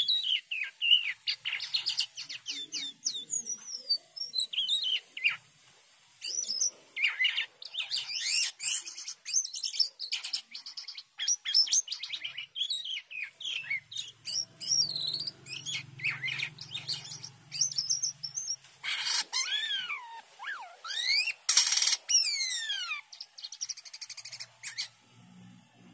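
Caged jalak kapas (white-shouldered starling) singing a long, varied song full of material: whistles, rapid chatter and twittering, with several falling whistled glides near the end.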